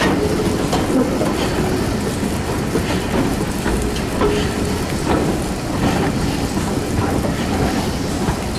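Train hauled by a BR Fairburn 2-6-4 tank steam locomotive running along the line, heard from an open window close behind the engine: a steady rumble of wheels on track broken by irregular sharp clicks.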